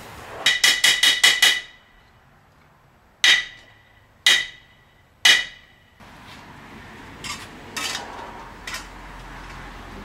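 Hammer striking sheet steel on a metal surface: a quick run of about six ringing blows, then three single blows about a second apart, each ringing briefly. A few fainter knocks follow near the end.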